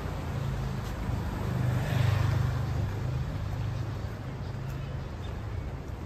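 A motor vehicle passing on the street, its low engine hum and tyre noise swelling to a peak about two seconds in and then fading, over street background noise.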